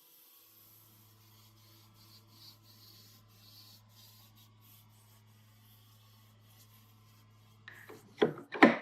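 Faint steady low hum with light rubbing. Near the end come several sharp wooden knocks as the turned handles are fitted into the vise.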